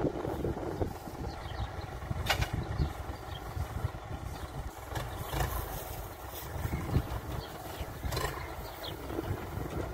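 Farm tractor's diesel engine running steadily, with wind buffeting the microphone. A few sharp knocks stand out about two, five and eight seconds in.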